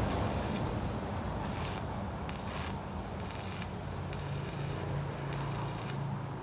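Electric arc welding: a crackling hiss that starts and stops in short stretches, over a steady low hum.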